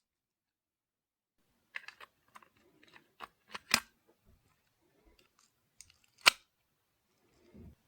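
A string of sharp plastic clicks and snaps from handling a Sony Walkman WM-FX415 cassette player, with two loud snaps about two and a half seconds apart, then a faint rustle near the end.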